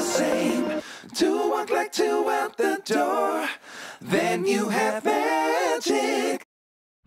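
Background music with a sung vocal line in short phrases, cutting off abruptly near the end.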